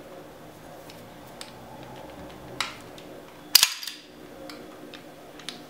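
Stainless Ruger SR1911 pistol's slide being pulled back and locked open by hand: a light metallic click a little before the middle, then a loud, sharp metal clack with a brief ring about two-thirds of the way through.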